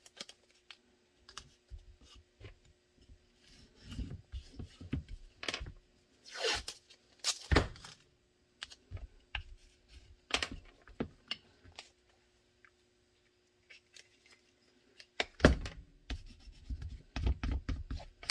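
Blue painter's tape being pulled, torn and rubbed down by hand over a pistol mold: scattered crinkles, rustles and light knocks, with a quiet pause a little past the middle.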